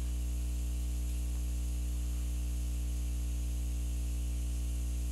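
Steady electrical mains hum with a ladder of evenly spaced overtones over a faint hiss. The brush strokes on the paper are not heard above it.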